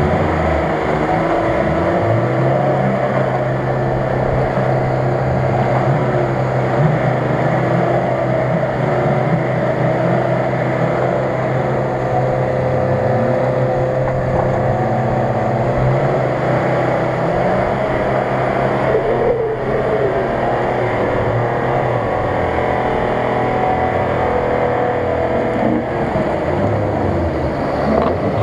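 Nissan Patrol's engine held at steady revs for over ten seconds, then revving up and down as the vehicle pushes through a flooded bog.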